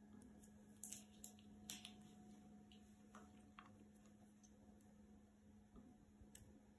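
Faint, scattered clicks of laptop keys pressed now and then by a latex-gloved finger, about six in all, over a low steady hum.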